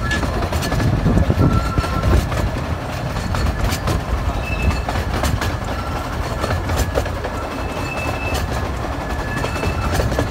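Ride in a carriage of the 15-inch-gauge Perrygrove Railway steam train: a steady rumble with the clickety-clack of wheels over rail joints, and short, high, thin squeals that come and go as the wheels take the curve.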